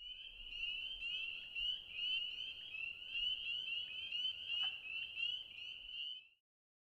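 A chorus of frogs: many high, short rising peeps overlapping without a break, cutting off suddenly about six seconds in.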